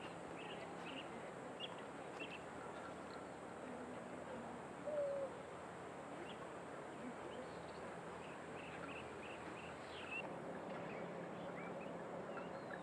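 Wild birds calling over a quiet outdoor background: short high chirps repeated throughout, and one louder, lower call about five seconds in.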